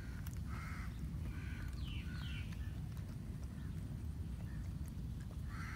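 A few short bird chirps, some falling in pitch, over a steady low outdoor rumble.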